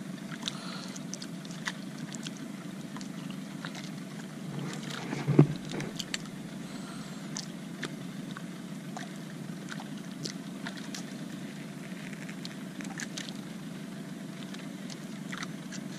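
Steady low rumble of a small fishing boat at sea, with scattered small clicks and one loud thump about five seconds in.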